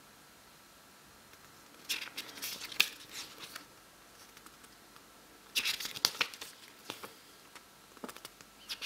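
Paper pages of a CD booklet being turned by hand. There are two bouts of rustling and flicking, about two seconds in and again about six seconds in, with a few lighter rustles near the end.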